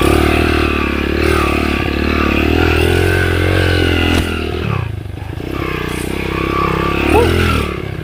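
Underbone motorcycle engine running under load, its pitch rising and falling with the throttle. It eases off about five seconds in, then picks up again.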